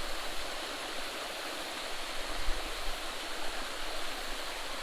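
Steady rushing of water from a small creek waterfall.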